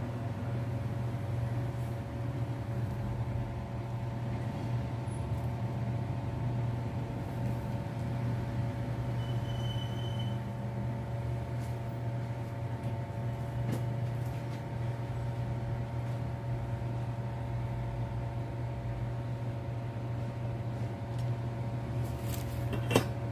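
Steady low machine hum, with several even tones above it, and one sharp click near the end.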